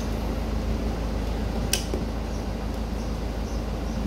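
Steady low background rumble, with one sharp click a little before the middle.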